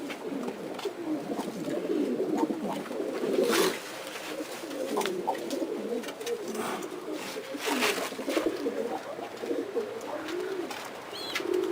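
Several domestic pigeons cooing over one another, with a couple of brief sharper noises among the coos about three and a half and eight seconds in.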